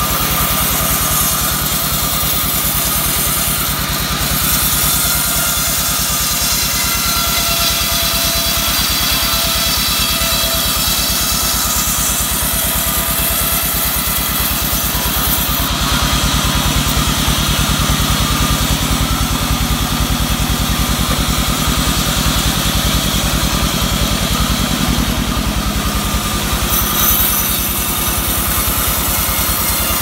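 Sawmill band saw running steadily as its blade cuts through albasia (sengon) logs, with the machine's constant drone and the hiss of the cut.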